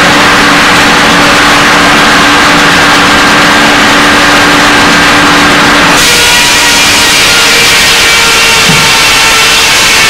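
Sawmill machinery running: a loud, steady mechanical drone with a constant hum, whose tone changes abruptly about six seconds in.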